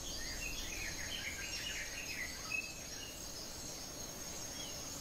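Forest ambience: a steady, high insect drone with birds chirping over the first two seconds or so, and a brief tick about two and a half seconds in.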